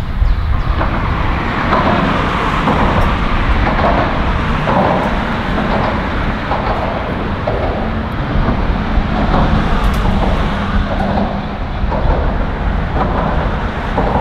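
Steady rumble of road traffic crossing the bridge overhead, heard from beneath the deck, swelling and easing as vehicles pass.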